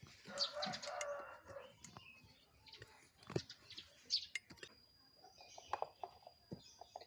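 Light clicks, knocks and scrapes of plastic toy trucks and soil being handled, with a brief pitched call in the first two seconds and a faint thin high whine from about halfway on.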